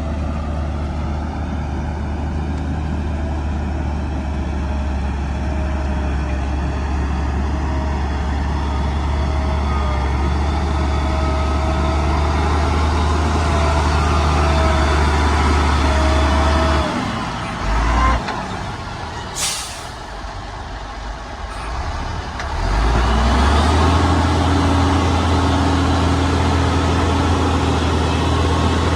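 Heavy diesel earthmoving machinery running steadily with a deep hum. About two-thirds of the way through, the engine drops off and a short, sharp hiss of air follows. The engine then picks up again and runs on.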